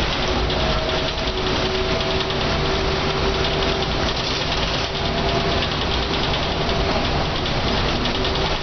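Mercedes-Benz O405N single-decker bus's diesel engine and drivetrain running steadily as the bus drives along, heard from inside the cabin, with a steady whine over the engine noise.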